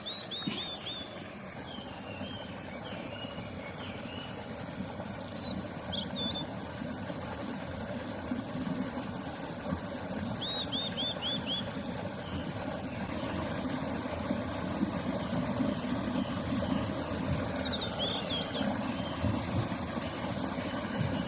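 Riverside outdoor ambience: a steady low rumble that slowly grows louder, over a thin high insect hum. Short runs of quick chirps from a small bird come near the start, about ten seconds in, and again near the end.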